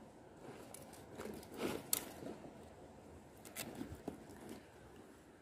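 Gloved hands handling a fishing lure: light rustling with a few sharp clicks, the loudest a little under two seconds in.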